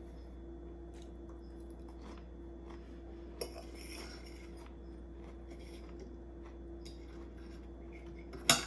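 Metal fork and knife clicking and scraping on a plate while cutting up a pop tart, with a short scrape about three and a half seconds in and a sharp clink near the end, the loudest sound. A steady low hum runs underneath.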